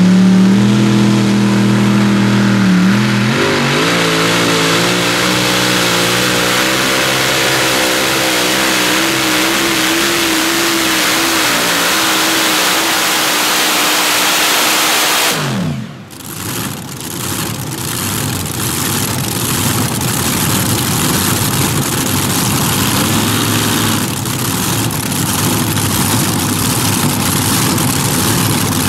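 Multi-engine Modified-class pulling tractor running hard under load against the sled, its high, steady engine note wavering slightly. About halfway through the revs drop away sharply as the pull ends, leaving a loud, rough rumble.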